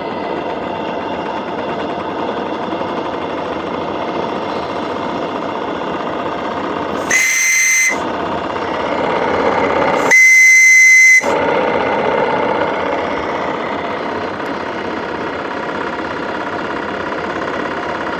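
Model steam whistle blown at 20 psi, giving two short blasts a few seconds apart: a steady single high note, the first just under a second long and the second about a second. Between the blasts a steady engine-like running noise goes on.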